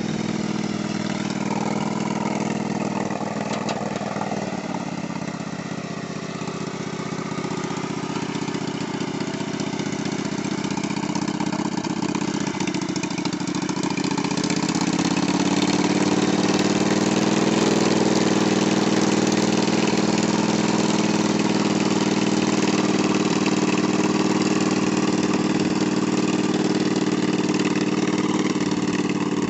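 Riding lawn mower engine running while the mower drives through floodwater. Its pitch sags a few seconds in, then rises about halfway through and holds steady at a higher, louder speed.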